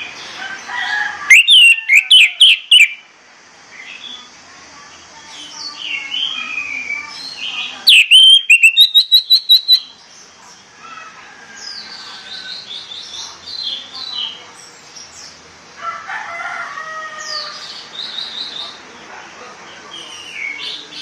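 Orange-headed thrush singing a varied morning song of short whistled phrases that slide in pitch. It breaks twice into loud runs of rapid repeated notes, about a second in and again about eight seconds in.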